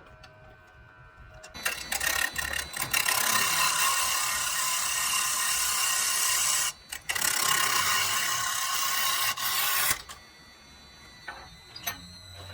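Spinning wood being worked on a woodturning lathe: a loud, steady hiss starts about a second and a half in, breaks off briefly around the middle and stops about ten seconds in. A few faint clicks follow.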